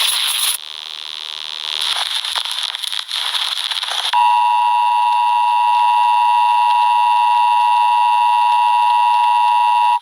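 Crackling static noise, then about four seconds in an emergency alert broadcast's steady two-tone attention signal starts and holds unchanged.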